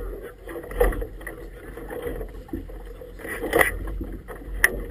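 Choppy river water slapping against an inflatable boat's tubes in uneven surges, with wind rumbling on the microphone and a sharp knock near the end.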